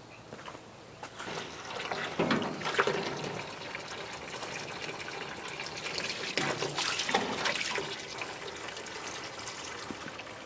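Water from a garden hose pouring and splashing into a tank of hot, soapy water, topping it off. It comes up about a second in and swells and falls unevenly.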